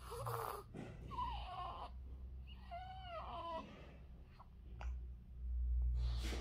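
Newborn baby cooing: three short coos, the first two falling in pitch and the third rising then falling, followed near the end by a breathy sound.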